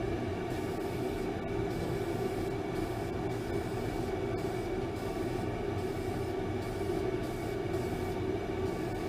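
Steady mechanical drone of a running motor, a low hum with several even tones that holds the same level throughout.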